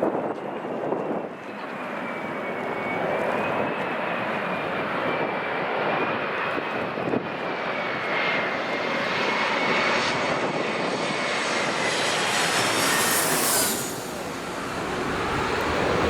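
Jet airliner engines passing close by: a loud rush with a high whine that wavers a little in pitch, growing louder over the first few seconds.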